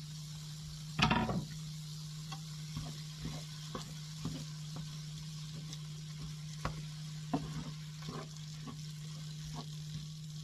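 Chopped tomatoes and vegetables sizzling in a hot non-stick frying pan as a wooden spoon stirs them, with irregular scrapes and taps of the spoon against the pan and a louder clatter about a second in.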